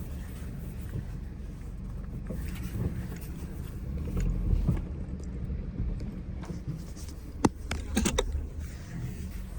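Car running with a steady low rumble that swells about four seconds in, then one sharp knock and, about half a second later, a quick cluster of knocks. This is the knocking noise that shows up when the car accelerates.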